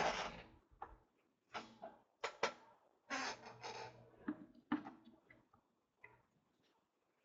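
A string of irregular clicks, knocks and short rustles, thinning out and fading away about six seconds in.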